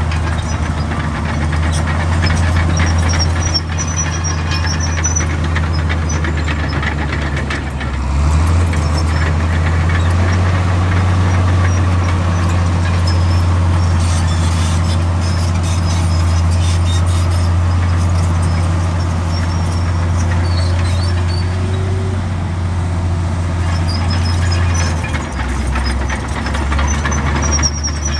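Komatsu D65 bulldozer's diesel engine working steadily, its pitch stepping up about eight seconds in and dropping again near the end, with short high squeals and clanks from the machine.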